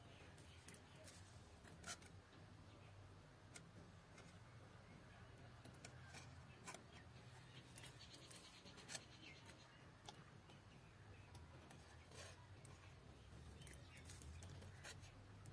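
Faint, irregularly spaced clicks of a plier-type saw set closing on a hand saw's teeth one at a time, bending them to set the teeth, over a low steady hum.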